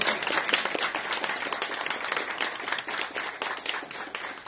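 Audience applause: many people clapping at once, gradually dying down towards the end.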